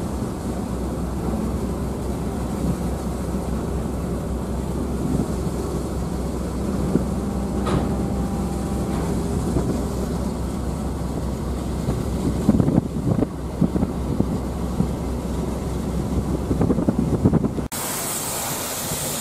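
Ferry engine running with a steady low hum, with water and wind noise, as the ferry draws in to the pier. Several knocks come about twelve to thirteen seconds in. Near the end the sound cuts abruptly to a steady hiss.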